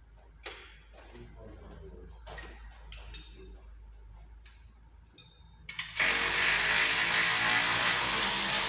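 Metal clicks and clinks of tools being handled under the car, then about six seconds in a power tool starts and runs loudly and steadily, a hiss with a faint hum in it, as it works on the car's underside.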